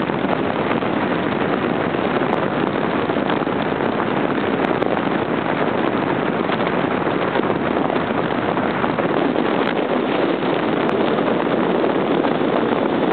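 Audi Ur-Quattro driving at a steady cruise, heard as a steady rush of wind and road noise over the mounted camera's microphone, with no clear engine note standing out.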